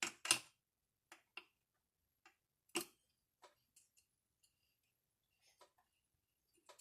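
Scattered sharp clicks and metallic clinks of hand tools and small chainsaw parts being handled during disassembly of a chainsaw, the loudest cluster right at the start and another sharp clink just under three seconds in.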